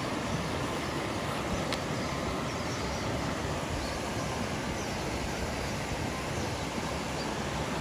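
Steady rushing of a shallow river running over rocks and small rapids.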